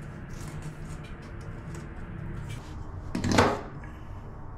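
A short rasp of a tape measure blade being drawn out along the wall, about three seconds in, over a low steady hum.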